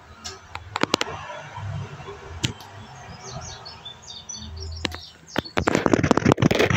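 Scattered sharp clicks and a few faint high chirps, then, about five seconds in, a loud stretch of close scraping and crackling full of clicks.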